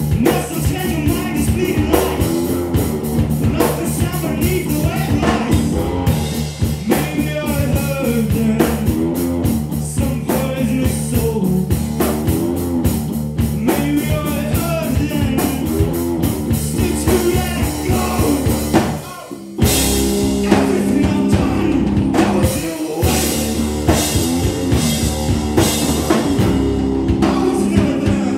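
Live rock band: a man singing over electric guitar played through an Orange amplifier, bass and drum kit. About two-thirds of the way through, the band cuts out for a split second, then crashes back in, and the singing drops out.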